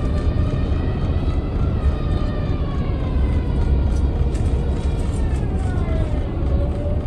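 A vehicle's engine droning over a steady low rumble, its pitch slowly falling and then rising again.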